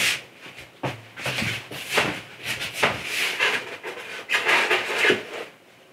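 Irregular rubbing and rustling with a few light clicks as resin model-kit parts are handled and fitted together.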